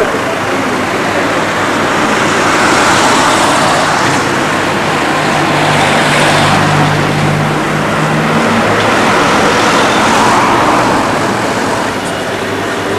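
Train running on the heritage line: a steady rumble with a low hum that swells and eases a few times.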